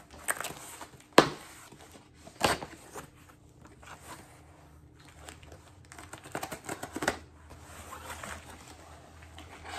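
A thick record mailer being opened by hand: rustling, crinkling and tearing of the packaging, with a sharp knock about a second in, another a second or so later, and a cluster of smaller knocks near the end.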